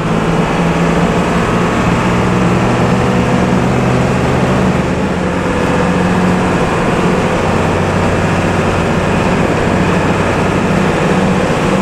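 Intercity bus's diesel engine running in slow stop-and-go traffic, heard from inside the bus as a loud, steady low drone that shifts slightly about five seconds in.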